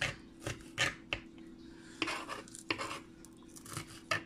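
Kitchen knife chopping scallion (green onion) finely on a plastic cutting board: irregular sharp taps of the blade on the board, about eight of them, unevenly spaced. A faint steady hum runs underneath.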